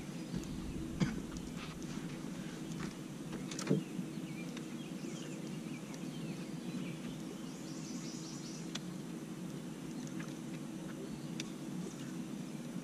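Birds chirping over a steady low hum, with two sharp clicks, about one second and nearly four seconds in.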